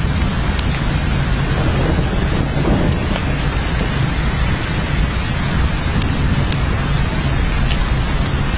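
Steady rain, with scattered drop ticks and a continuous low rumble underneath that swells briefly about two seconds in.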